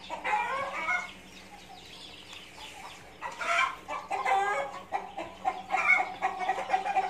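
Young black chickens clucking and calling, several birds overlapping, with a quieter stretch between about one and three seconds in and more continuous calling from then on.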